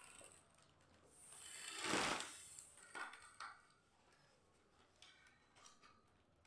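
One breathy puff of air blown by mouth into the valve of a foil letter balloon, about two seconds in, followed by two short faint puffs.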